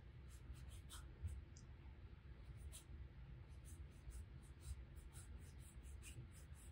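Faint scratching of a round watercolour brush stroking pink paint across textured watercolour paper: a quick run of short strokes, thicker in the second half.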